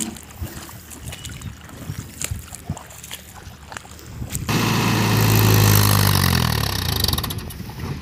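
Mahindra Yuvo 585 DI tractor's diesel engine straining to pull itself out of deep paddy mud. It is faint at first, then loud and close from about four and a half seconds in, its pitch sinking slowly under the load before it fades near the end.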